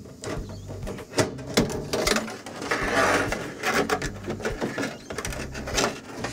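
Gas hose being pulled up and stowed in a caravan's slide-out kitchen compartment: irregular clicks and knocks of the hose and its fitting against the metal, with a rubbing scrape about three seconds in.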